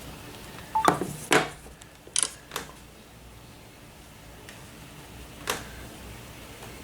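A few sharp clicks and knocks of handling around the camera, four in the first three seconds and one more about five and a half seconds in, over a faint steady hiss of rain.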